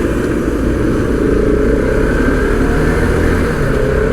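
Riding on a motorcycle: heavy wind rush and road rumble over the running engine, whose tone rises slowly from about a second in as it gathers speed.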